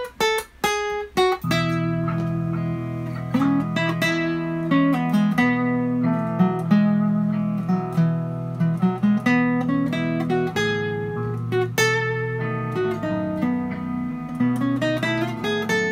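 Steel-string acoustic guitar playing a solo in E major. A few single picked notes make a pickup, then from about a second and a half in a flowing line of scale runs and chord arpeggios plays over sustained low chords.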